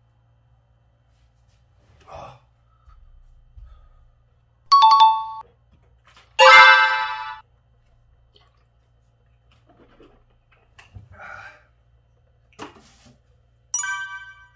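Edited-in comedy sound effects: a two-note ding-dong chime about five seconds in, a louder, brighter musical sting right after it, and another bright chime near the end, with faint small sounds in between.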